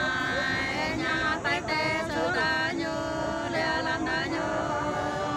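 Unaccompanied sli singing, the Nùng people's call-and-response love song: a voice sings long, held, wavering notes with a bright, ringing tone.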